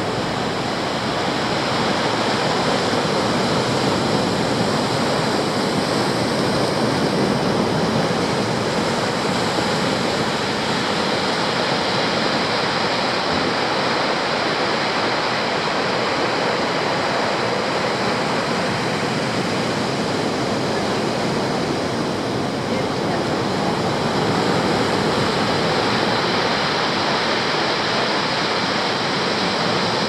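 Atlantic surf breaking and washing over a rocky shore: a loud, steady rush of water without distinct pauses between waves.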